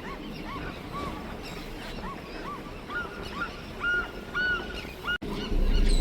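A flock of birds calling: short arching calls, two or three a second, overlapping from several birds. A low rumble comes in near the end.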